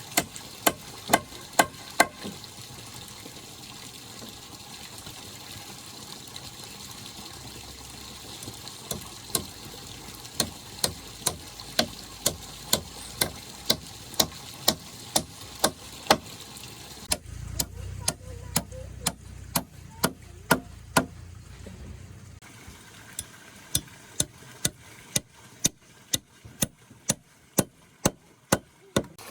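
Runs of sharp, regular blows, about two a second, from a tool striking repeatedly in the work of building a bridge, with short pauses between runs. Under them is a steady hiss of water, and a low rumble from about 17 to 22 seconds.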